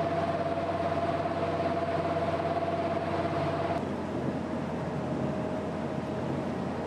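Amphibious cars' engines running as they motor through the water, with a steady low drone, a thin high whine and the wash of water. About four seconds in the sound shifts and the whine turns fainter and a little lower.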